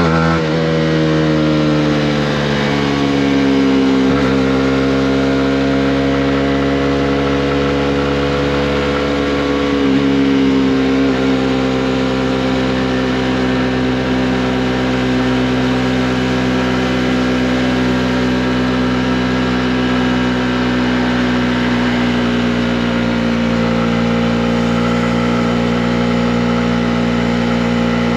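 Honda CB125R's single-cylinder four-stroke engine under way on the road. The engine note falls over the first few seconds, changes slightly about four and again about ten seconds in, then holds a steady cruising note.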